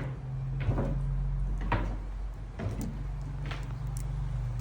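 Footsteps, one knock about every second, over a steady low hum.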